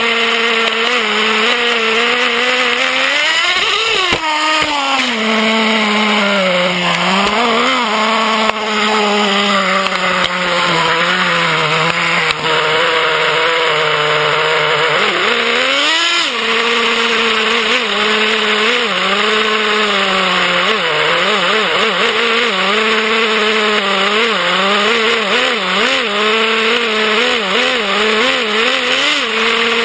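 Traxxas Revo 3.3 nitro RC truck's small two-stroke glow engine running close up, its pitch wavering with the throttle and sweeping up sharply twice, about four seconds in and again at about sixteen seconds.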